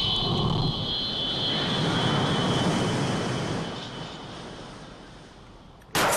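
Cartoon jet-engine rushing sound effect with a high whine, fading away over several seconds, followed by a sudden loud impact near the end.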